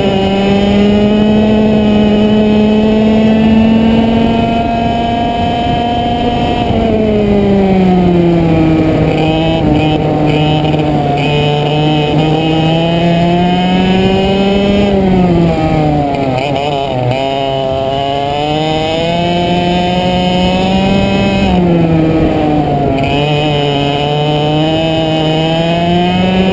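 100cc two-stroke go-kart engine running hard under the driver. Its pitch drops as the revs fall for corners, once deeply about two-thirds of the way through and briefly again near the end, then climbs back each time on the exits.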